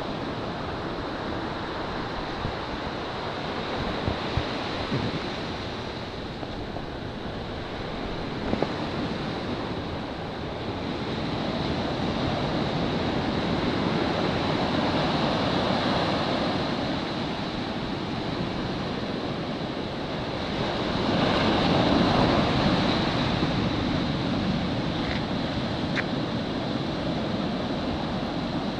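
Ocean surf from a typhoon swell, waves rushing and breaking, with wind on the microphone. It swells louder twice, once about halfway through and again a little later.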